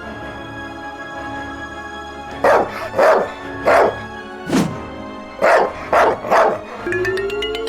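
A dog barking seven times in short, separate barks over steady background music, starting about two and a half seconds in and stopping a little after six seconds.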